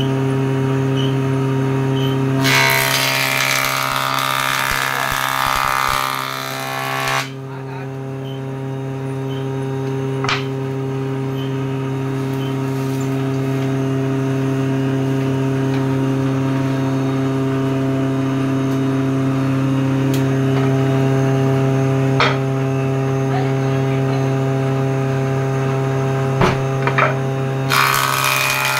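Combination table saw and jointer running with a steady electric-motor hum. About two and a half seconds in, a wooden block is planed across the jointer cutter head, a loud cutting noise lasting about five seconds, and another planing pass starts near the end; a few sharp knocks fall in between.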